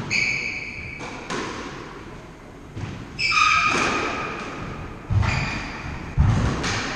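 Squash rally: the ball struck sharply off rackets and walls, court shoes squeaking on the wooden floor near the start and about three seconds in, and heavy thuds of footfalls and ball near the end.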